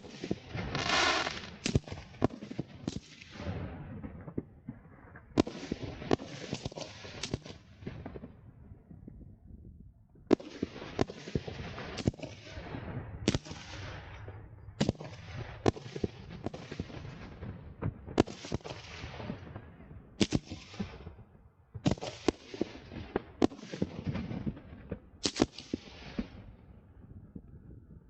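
Aerial fireworks bursting in rapid volleys: clusters of sharp bangs, each with a short fading rumble, separated by brief lulls of a second or two.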